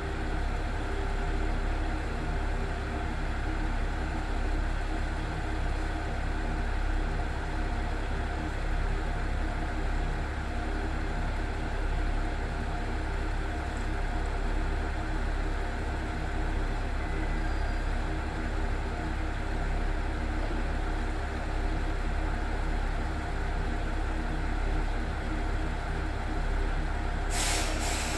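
An ET127-series electric multiple unit standing at a station, its onboard equipment giving a steady hum with several constant tones. A short air hiss comes near the end.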